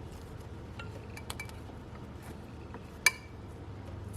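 Small clinks and clicks of hand tools and hose fittings being handled while a vacuum hose is cut and fitted, with one sharp metallic click and a brief ring about three seconds in, over a low steady hum.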